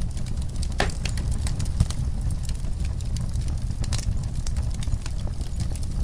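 Wood fire crackling, with irregular sharp pops and snaps, two louder ones about a second in and near four seconds, over a steady low rumble.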